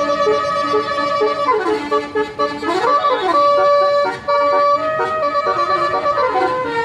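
Tour bus's Basuri telolet horn playing a multi-note tune: held chord-like notes that step between pitches, with a falling glide about one and a half seconds in and a quick dip and rise around three seconds.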